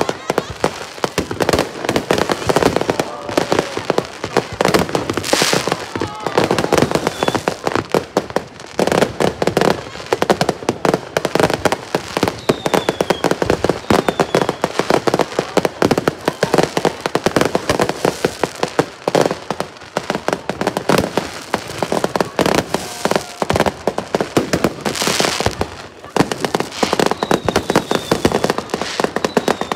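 Fireworks display going off in a dense, unbroken barrage of rapid bangs and crackling.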